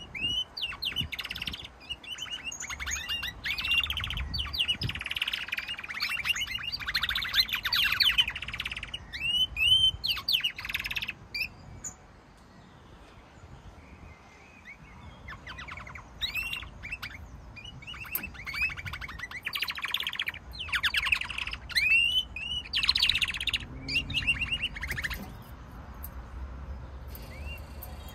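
Domestic canaries singing: phrases of fast trills and quick rising whistled notes, breaking off for a few seconds around the middle and again shortly before the end.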